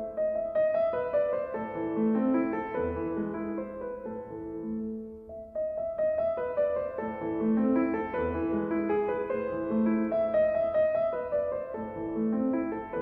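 Background piano music: a melody of quick, steady notes that pauses briefly about five seconds in, then starts the phrase again.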